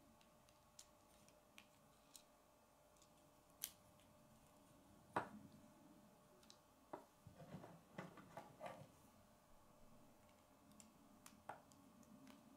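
Faint, scattered clicks and taps of plastic K'nex pieces being handled and fitted together as gears are slid onto rods and connectors are snapped in. The sharpest click comes about five seconds in, and a quick run of small clicks and rattles follows a couple of seconds later.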